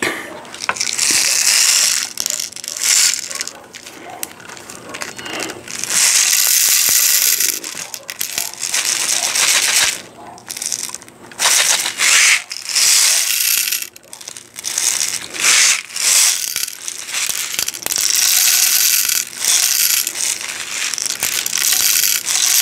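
Copper-coated steel BBs rattling as they pour into the loading port of a Daisy Red Ryder BB gun. They come in several pours of dense clattering, each a second or two long, with short pauses between.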